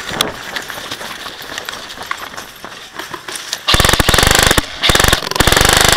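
Airsoft gun firing full-auto in rapid, loud bursts, starting a few seconds in, with two short breaks before it runs on continuously. Before the firing there are only faint scattered clicks.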